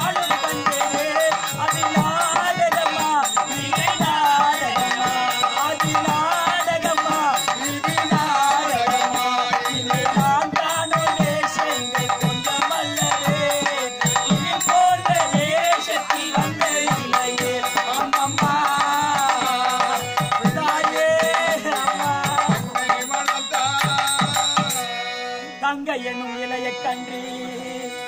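Stage-drama music: a melody that wavers in pitch, carried over steady hand-drum strokes. Near the end the melody drops away and the sound grows quieter.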